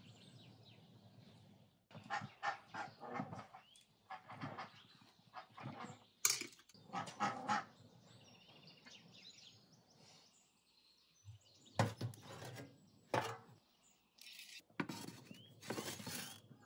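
Food-handling sounds: a run of short taps and clicks as eggs and dishes are handled. Near the end, sharp knocks and a scraping as a metal baking pan is slid into a clay oven.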